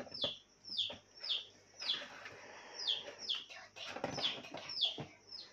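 A bird chirping over and over: short, high chirps that drop in pitch, about one every half second.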